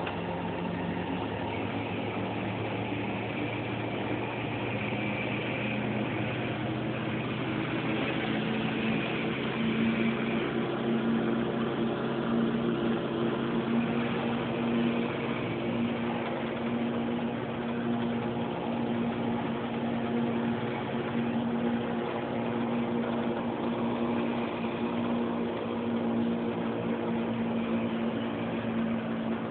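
Steady drone of a Chevy K5 Blazer being towed downhill, heard inside its cab: low running and road noise with steady hum tones, one of which grows stronger about eight seconds in.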